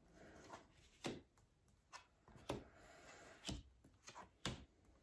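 Tarot cards being shuffled hand over hand: a faint rustle of card sliding over card, with soft clicks about once a second as cards are dropped onto the deck.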